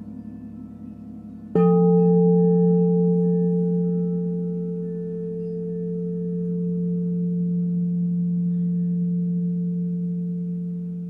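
A singing bowl is struck about a second and a half in and rings on in one long low tone with fainter higher overtones, its loudness slowly swelling and fading. Before the strike, a quieter bowl tone is already ringing with a fast wavering beat.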